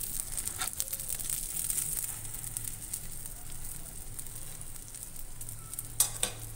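Omelette sizzling and crackling in hot oil on a flat griddle as a metal spatula lifts and folds it, with one sharp knock about six seconds in.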